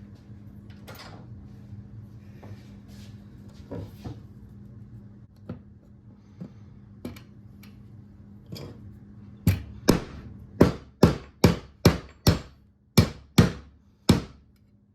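Hand hammer striking small metal latch parts for a cooler to fit them back together: light knocks and handling clicks at first, then about ten sharp hammer blows in quick succession over the last five seconds.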